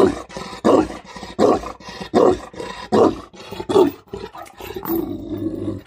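Tibetan mastiff barking deep and loud, a regular run of barks about one every three-quarters of a second.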